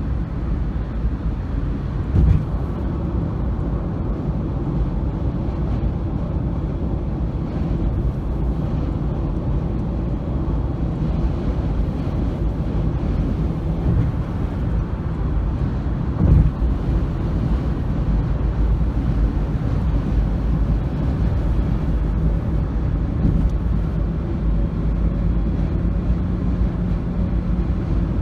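Steady low rumble of a vehicle travelling, with two brief thumps, one about two seconds in and one about sixteen seconds in.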